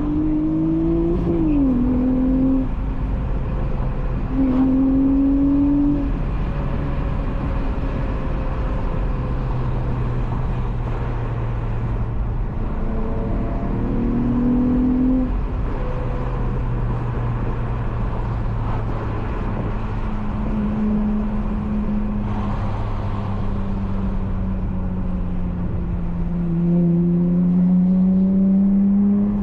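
Swapped Honda J32A3 3.2-litre V6 in a 7th-generation Accord coupe, breathing through a Skunk2 Megapower single-exit exhaust, under way: short pulls whose pitch rises and then drops at each upshift, stretches of steady cruising, and a longer rising pull near the end.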